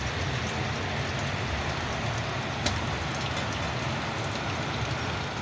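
Snow or sleet pattering steadily on a plastic shelter sheet, an even hiss of fine ticks, with one sharper tick about two and a half seconds in.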